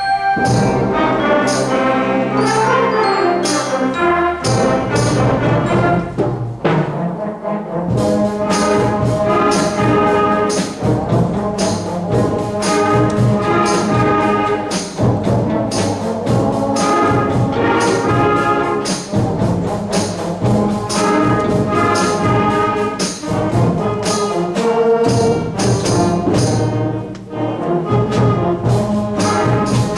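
Middle school concert band of woodwinds, brass and percussion playing a piece live, with brass prominent; a regular drum beat runs through most of it.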